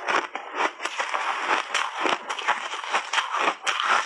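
Refrozen shaved ice being chewed close to the microphone: a rapid, unbroken run of crisp crunches as the ice breaks up between the teeth.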